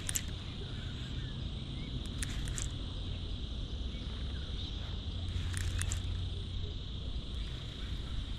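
Steady, high-pitched chorus of insects at dusk, with a low rumble underneath. A few short clicks come in small groups: at the start, about two seconds in and about five and a half seconds in.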